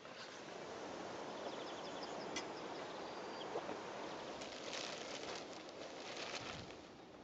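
Outdoor rustling with a bird calling briefly in quick repeated high notes near the middle. From about four and a half seconds in comes a loud crackly rustle of a plastic pack sack being handled.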